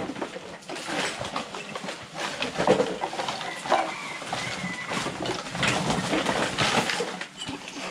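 Household rubbish being rummaged through and gathered by hand into a sack: continuous rustling with irregular clatters and knocks of small objects.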